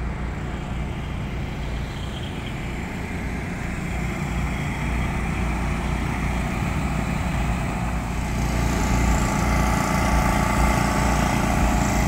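Small gasoline generators running with a steady drone, growing louder about two-thirds of the way through.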